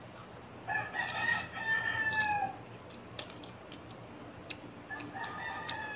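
A rooster crowing twice: one long crow about a second in, and a second beginning near the end, each drawn out and falling in pitch at its close.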